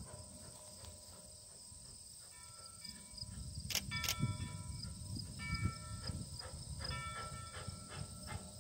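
Steady high-pitched insect buzzing over a low, uneven rumble that grows louder from about three seconds in. Short, faint, clear tones at several pitches come and go, and there are two sharp clicks near the middle.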